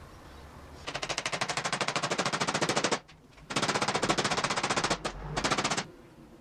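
Rapid, even mechanical rattle of a power tool in three bursts, about a dozen knocks a second. The first burst is the longest, and the last, near the end, is short.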